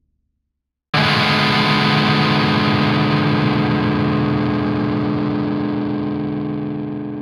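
A single distorted electric guitar chord, struck once about a second in and left to ring out, slowly fading.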